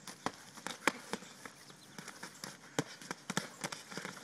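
Boxing sparring: irregular slaps and thuds of punches landing, mixed with scuffing footsteps, the hardest hits about a second in and just before three seconds in.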